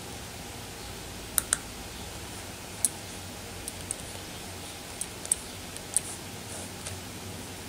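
A computer mouse clicking, scattered single clicks with a quick double click about a second and a half in, over a steady low background hum.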